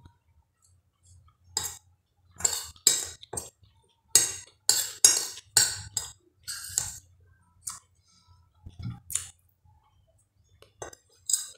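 Metal spoon clinking and scraping against a glass plate while scooping food, in irregular clusters of short sharp strikes, busiest in the middle and with a few more near the end.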